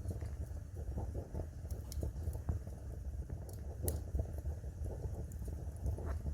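Wood fire burning in a fireplace: a steady low rumble of the flames with scattered crackles and pops, the sharpest about four seconds in.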